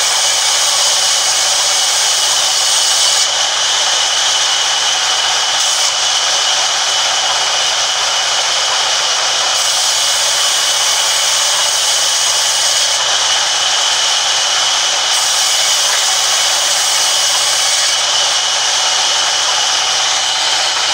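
Sawmill band saw running steadily and cutting timber, a loud continuous whirring hiss without a break.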